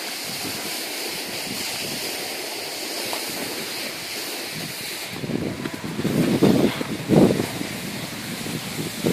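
Steady rushing of wind on the microphone and snow hissing under a rider sliding down a groomed slope, turning into louder gusty rumbling from about halfway through.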